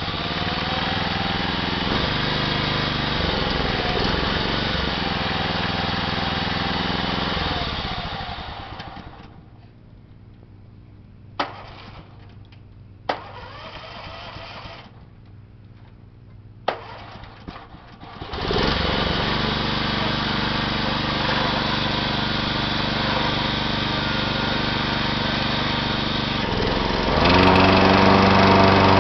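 Engine of a John Deere 14SE self-propelled walk-behind mower running steadily, then dying away about eight seconds in. A quiet stretch follows with a few sharp clicks and a short burst of sound. The electric-start engine then catches again and runs, growing louder near the end.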